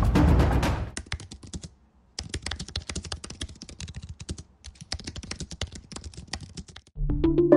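Computer keyboard being typed on in quick runs of keystrokes for about six seconds, with a short pause twice. Loud music with drum hits fades out about a second in, and music starts again near the end.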